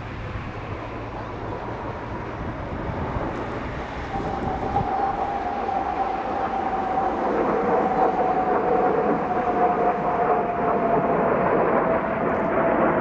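A formation of Kawasaki T-4 jets flying past with their turbofan engines running, the roar growing steadily louder. From about four seconds in, a whine joins the roar and slowly falls in pitch as the jets pass.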